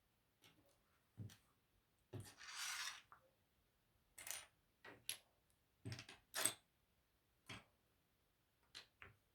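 Small plastic Lego pieces clicking and clattering as they are handled and pressed together: about ten separate sharp clicks, with a short rustle of pieces being sorted about two and a half seconds in.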